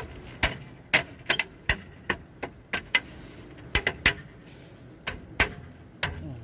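Plastic wheel cover (hubcap) being pressed and knocked by hand onto a car wheel, a tight fit: about a dozen sharp clicks and knocks at irregular spacing.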